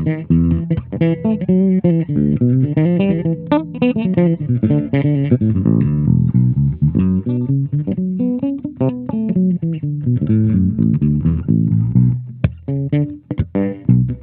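Cunningham RLJ6 headless electric bass played unaccompanied: a busy line of plucked notes with sharp string attacks, the pitch walking up and down.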